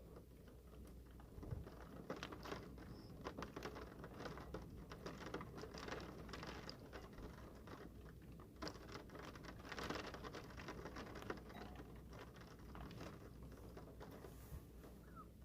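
Rain pattering: a quiet, dense, irregular patter of many small drop hits, picking up slightly about a second and a half in.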